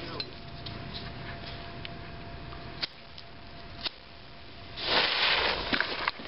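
Visco fuse of a black powder cannon lit and burning: a loud hissing sputter starts suddenly about three-quarters of the way through and carries on for over a second. Two sharp clicks come shortly before it.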